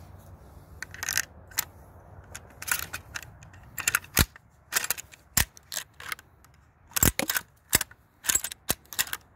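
Cimarron 1887 lever-action shotgun's action being handled as shotgun shells are loaded: a string of sharp, irregular metal clicks and clacks, denser and louder from about four seconds in.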